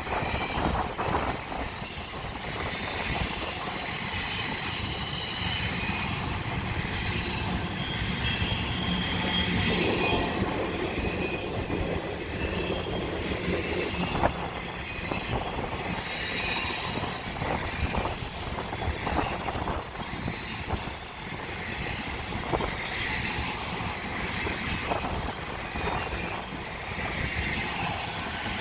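BNSF intermodal freight train rolling past at track side: a steady rumble of wheels on rail, sharp clacks over the rail joints and faint high wheel squeal.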